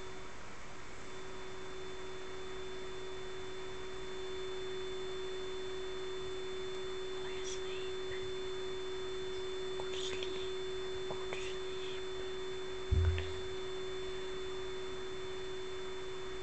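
A steady, even hum that holds one pitch throughout, with a faint higher whine over it. A few faint short high chirps come and go in the middle, and there is one brief low thump about two-thirds of the way through.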